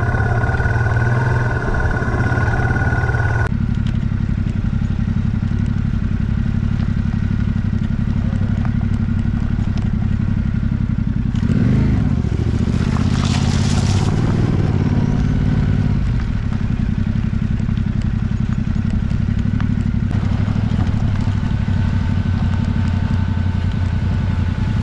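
Off-road motorcycle engine running steadily as the bike rides a dirt trail. About twelve seconds in, the engine eases off and a brief rush of tyre noise comes up as the bike crosses a wet, gravelly patch.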